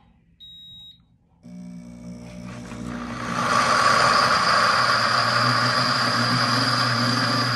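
Pampered Chef Deluxe Cooking Blender: one beep from the control panel, then about a second and a half in the motor starts and speeds up over about two seconds to a steady, loud run, grinding honey-roasted peanuts into peanut butter on its grind setting.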